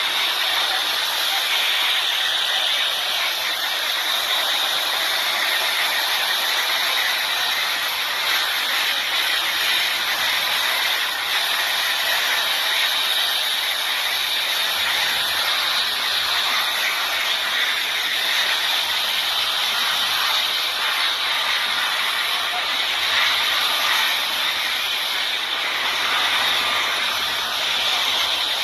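Helicopter running on the ground: a loud, steady rushing hiss of turbine and rotor wash with no pauses.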